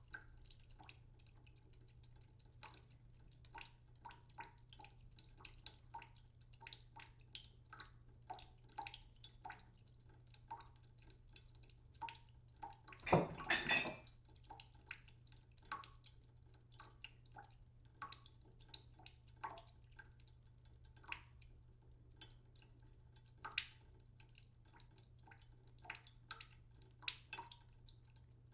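Purple cauliflower and potatoes frying in a pan, with faint irregular crackles and pops of hot oil. About 13 seconds in, a louder clatter lasting about a second as a ceramic plate is set down.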